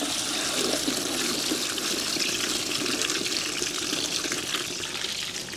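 Water running steadily from a hose into a plastic bucket, filling it.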